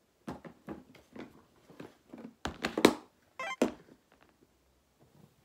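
A clear plastic storage box and a plastic stand mirror being set down and handled on a tabletop: a run of knocks and clatters, loudest in the middle, with a short rattle just after.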